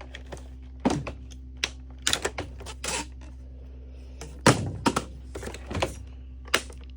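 Irregular sharp plastic clicks and knocks as a part is unlatched and pulled off a Shark vacuum, over a low steady hum.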